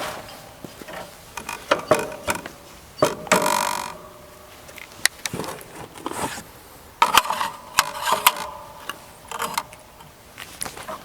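Winchester Model 12 pump-action shotgun being reloaded and handled: a run of sharp metallic clicks and clacks as shells are pushed into the magazine and the action is worked, a few of them ringing briefly.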